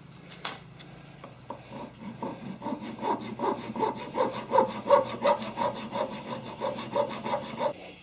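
Hand file rasping back and forth across the soft metal of an AR-15 A2 rear sight aperture clamped in a vise, cutting a V-notch. The file strokes come quickly, about three a second, starting about a second and a half in and stopping just before the end.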